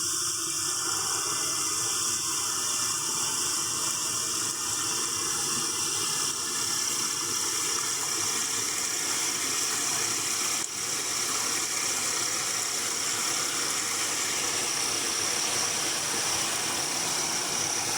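Steady night-time forest ambience: a constant high-pitched insect chirring over an even hiss, with a brief small dip about ten seconds in.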